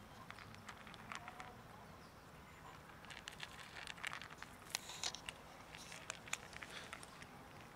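Two cats crunching dry kibble from plastic trays: faint, irregular crunches and clicks, busiest in the middle.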